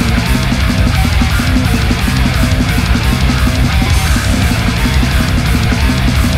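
Heavy rock music with a steady, driving drum beat.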